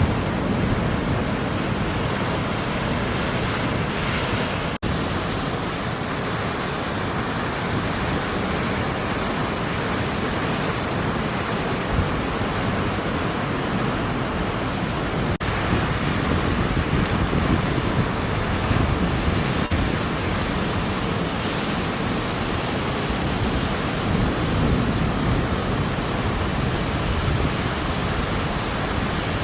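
Ocean surf washing steadily with wind noise on the microphone. The sound drops out for an instant about five seconds in.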